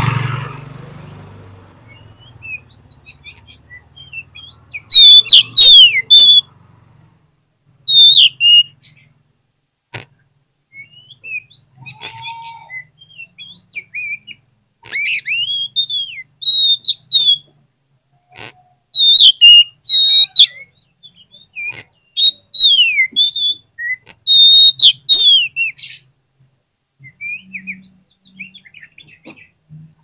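Oriental magpie-robin singing: loud, varied whistled phrases of rising and falling notes, coming in bursts with short pauses between them.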